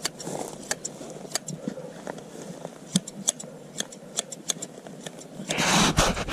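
Hand shears snipping through a sheep's fleece: irregular sharp clicks of the blades closing, a few a second. A loud burst of noise comes near the end.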